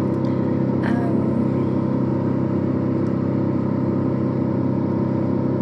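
Wood chipper's engine running steadily at constant speed, a continuous even drone with no change in pitch.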